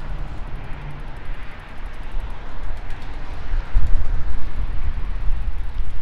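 Gusty wind buffeting the microphone in irregular low rumbles, strongest in the second half, over the steady hiss of road traffic.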